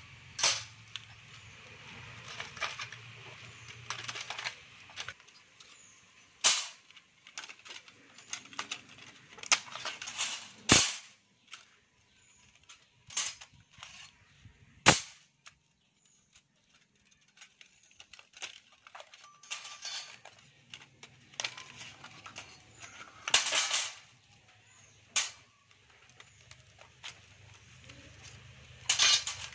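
Sharp metallic clicks and clinks of the steel E and I laminations of an old step-up transformer core being worked loose and pulled out, coming irregularly every few seconds with faint rattles between. The laminations are stacked alternately and varnished, which makes them hard to get out.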